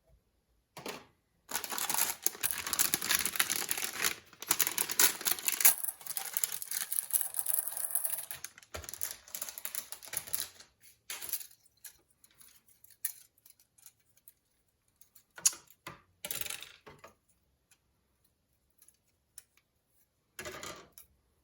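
Model kit packaging and plastic parts being handled: several seconds of dense crinkling and rattling, then scattered clicks and short rustles, with one more short rustle near the end.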